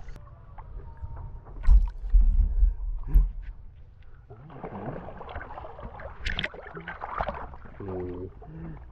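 Muddy lake water sloshing and lapping around a camera held at the water's surface, with a few low bumps in the first seconds.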